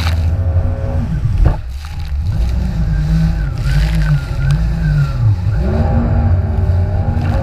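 Jet ski engine running at speed, its pitch swinging up and down several times as the revs change over the waves, over a loud low rumble. A brief knock about a second and a half in.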